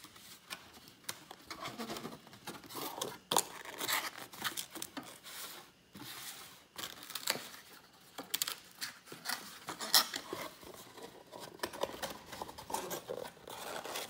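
Cardboard box blank being folded up by hand into a tray: the board creasing, scraping and rubbing as its walls and end flaps are bent up and tucked in, with irregular sharp clicks and taps against the tabletop.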